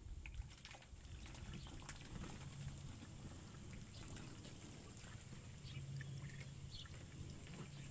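Faint lapping of a cat drinking from a water-filled plastic kiddie pool: small wet licks scattered throughout, over a low steady rumble.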